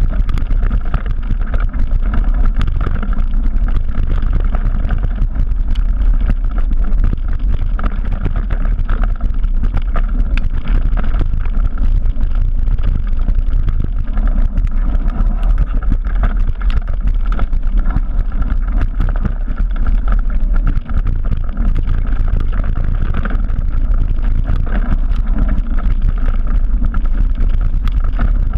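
Mountain-bike descent on a Trek Remedy 9 full-suspension bike: a steady rumble of wind on the microphone and knobby tyres running over the dirt trail, with many small clicks and rattles from the bike over the bumps.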